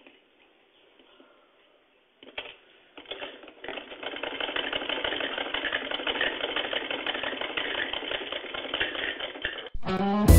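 Hand-cranked sewing machine stitching fabric: a rapid, even run of needle clatter starts about three seconds in and stops just before the end, where music begins.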